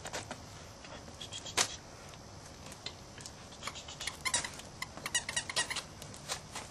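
Australian Terrier puppies moving about and playing: a scatter of small, sharp clicks and ticks, busiest about four to five and a half seconds in.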